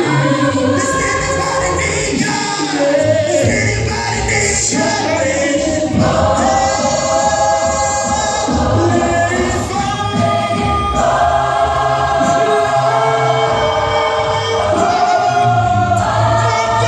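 Gospel choir singing in harmony over instrumental backing, moving into long held chords about six seconds in.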